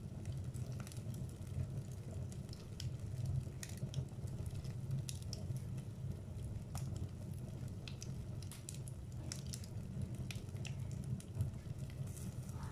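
Wood fire burning in a fireplace, crackling with scattered sharp pops and snaps over a steady low rumble.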